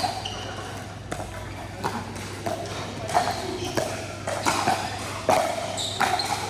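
Pickleball rally: paddles hitting a plastic pickleball with sharp pops, about one hit every two-thirds of a second, some with a short ring. Voices murmur in the background.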